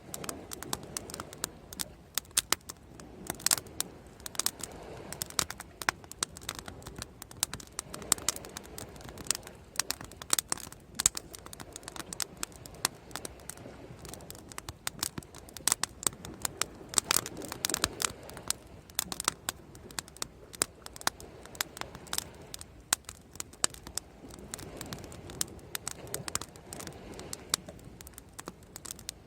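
Bonfire crackling and popping: dense, irregular sharp snaps from the burning wood, over a soft rushing that swells and fades every few seconds.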